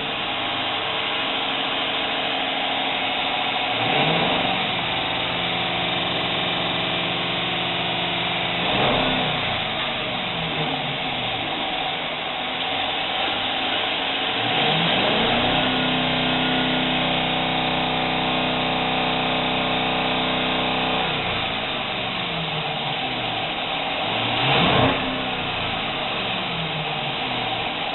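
5.7-litre HEMI V8 of a Jeep Cherokee running cold with a misfire on cylinder 5, revved up from idle and held several times, with short blips of the throttle about nine seconds in and near the end.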